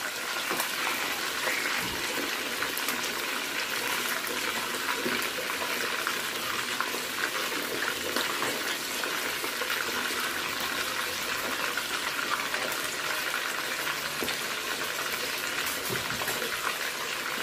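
Whole fish frying in hot oil in a deep pot: steady sizzling with fine crackling.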